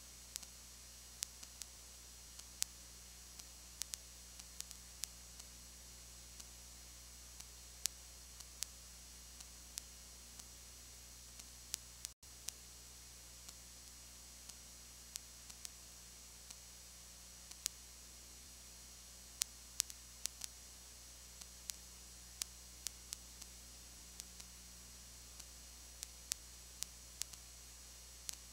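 No game sound: a steady electrical hum and hiss from the recording itself, broken by scattered sharp clicks and crackles at irregular intervals, with a brief dropout about twelve seconds in.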